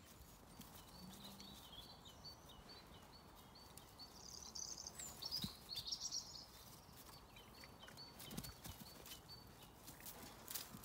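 Faint birdsong: a small bird's high, quick repeated notes, a little louder about four to six seconds in, with a few soft clicks and rustles.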